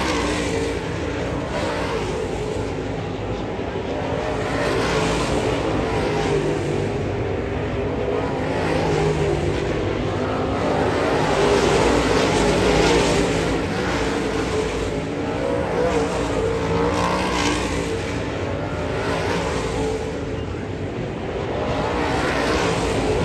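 Dirt late model race car engines running at speed: a steady, wavering drone that swells several times as cars go by.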